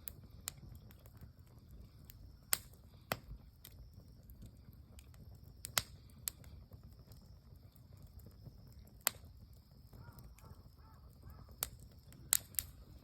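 Wood bonfire crackling, with sharp irregular pops every second or so over a low steady rumble.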